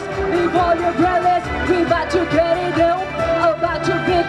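A woman singing a pop song into a microphone over loud amplified backing music with a steady beat.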